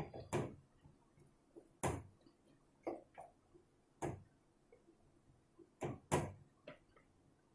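A wooden spatula knocking against the side of a metal kadai while brinjal pieces are stirred into a thick ground coriander-coconut paste: sharp, irregular knocks about once a second, some in quick pairs.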